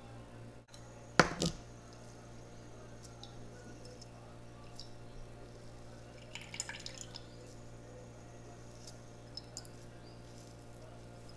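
Herbal coconut oil dripping into a glass beaker as it is squeezed through a gauze bandage by hand, with small wet crackles and ticks. A single sharp glass knock about a second in is the loudest sound. A steady low hum runs underneath.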